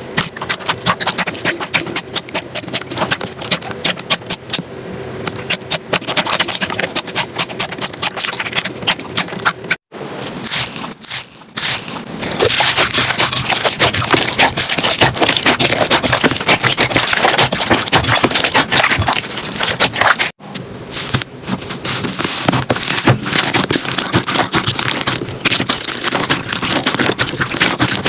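Slime being squeezed, poked and pressed by hand, making rapid crackling and popping clicks. The sound cuts out briefly twice, about ten and twenty seconds in, as one slime clip gives way to another.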